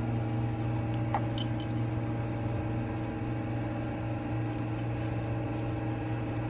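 Steady low mechanical hum, with a few faint clicks and a brief squeak about a second in from hands working among the engine-bay hoses.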